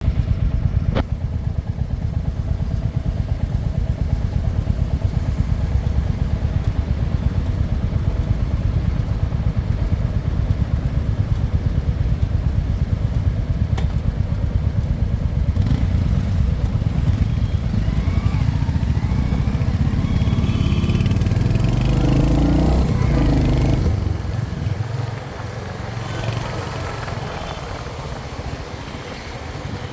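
Royal Enfield Hunter 350's single-cylinder engine running with a rapid, even exhaust thump. The engine sound eases off about four-fifths of the way through and picks up again right at the end.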